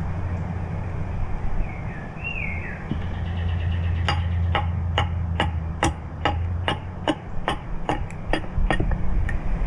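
Axe striking a wooden spoon blank in quick, even, light chopping strokes, about two to three a second, starting about four seconds in. A steady low hum runs underneath.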